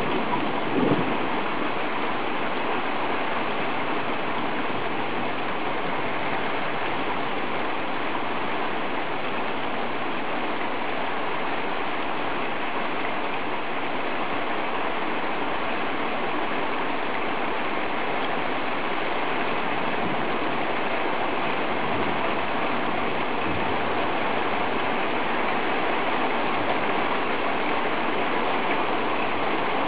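Heavy rain pouring down in a steady, even hiss of downpour.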